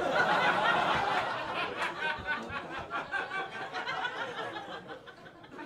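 Audience laughing after a joke, a burst of laughter right at the start that fades away over several seconds.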